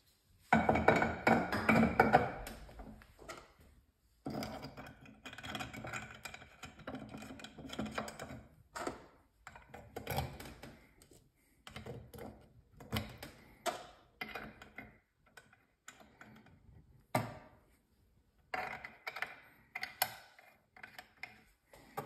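Brass shower-valve components being handled and fitted back into the valve body: a busy stretch of handling noise in the first few seconds, then a run of separate metallic clicks, taps and knocks.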